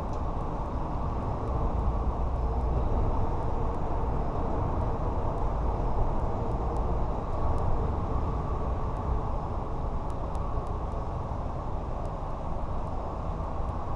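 A steady low rumbling noise with no clear pitch or rhythm.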